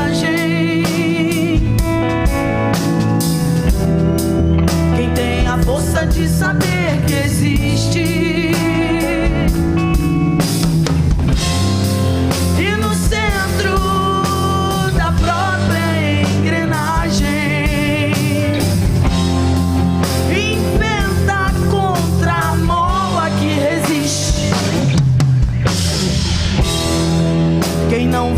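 Live rock band playing an instrumental passage: lead electric guitar playing wavering, bent notes over bass guitar and drum kit.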